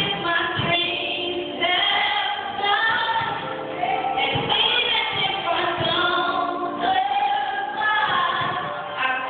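A woman singing solo into a handheld microphone, holding long notes that bend and slide in pitch.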